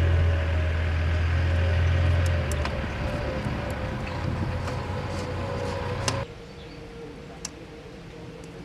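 An engine running steadily at a low pitch, easing off after a couple of seconds; the sound cuts off abruptly about six seconds in, leaving a quieter steady hum with a few light clicks.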